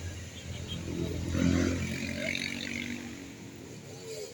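A road vehicle driving past, its engine and tyre noise growing louder to a peak about a second and a half in, then fading away.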